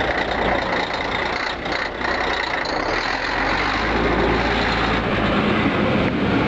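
Scania K113CL coach's 11-litre DSC11 six-cylinder turbo-diesel running while the bus stands still, a hoarse exhaust note that gets a little heavier and louder about three to four seconds in.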